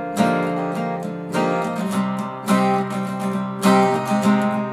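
Acoustic guitar strummed in chords, with a fresh strum roughly every second, in a gap between sung lines.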